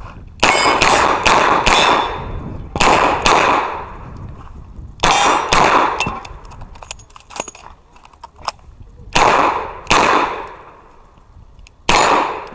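Smith & Wesson 627 eight-shot .357 Magnum revolver fired in quick strings of two to four shots, each report with a ringing tail, with a longer pause in the middle of the run.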